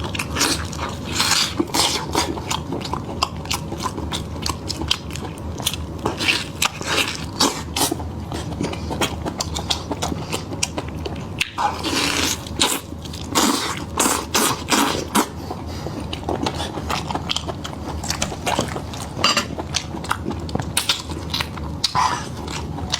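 Close-miked eating: a person biting and chewing meat, with a steady run of irregular quick clicks and crunchy mouth sounds.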